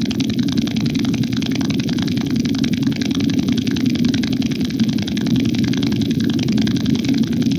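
Small multirotor drone's motors and propellers buzzing steadily, hovering at an even pitch.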